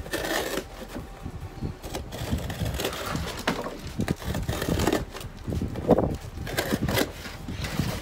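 Box cutter blade slicing through cardboard around a shipping label in short, irregular scraping strokes, with the cardboard rustling and crinkling as it is handled.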